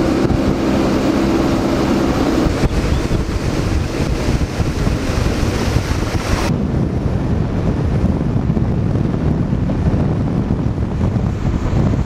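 Wind buffeting the microphone over the running outboard motor and rushing water of a boat under way at speed. A low engine hum stands out in the first couple of seconds, and about six and a half seconds in the sound abruptly turns duller, losing its hiss.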